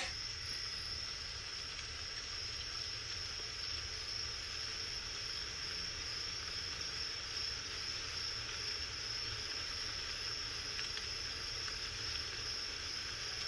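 Quiet, steady hiss with a low rumble underneath and a thin, high steady tone: hushed background ambience.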